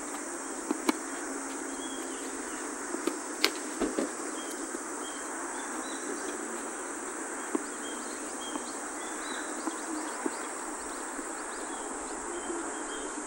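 Tennis ball struck back and forth with rackets: several sharp pops in the first four seconds and one more about seven and a half seconds in. Under them runs a steady high drone of insects with faint short chirps.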